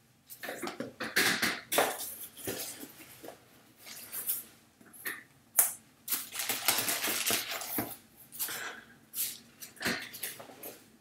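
Paper or plastic packaging being handled, crinkling and rustling in irregular bursts, as a parcel is unwrapped.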